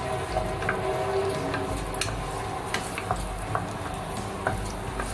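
Minced garlic sizzling in a little hot oil in a wok, stirred with a wooden spatula that scrapes and taps against the pan at irregular intervals. The garlic is being fried until fragrant.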